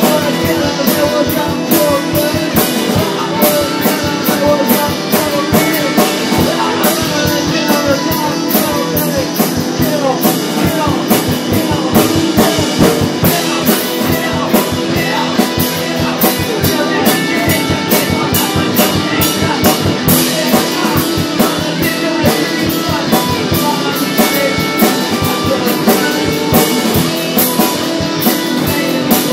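Rock band's demo recording: guitar and a full drum kit playing a driving, steady beat.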